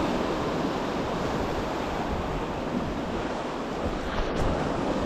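Sea surf washing and breaking around rocks at the shoreline, a steady rushing of water.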